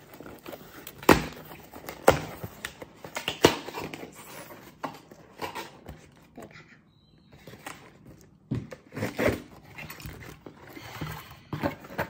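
A cardboard shipping box being cut open and handled: sharp knocks and taps on the cardboard, three loud ones in the first few seconds, with scraping and rustling between and a further cluster of knocks later on.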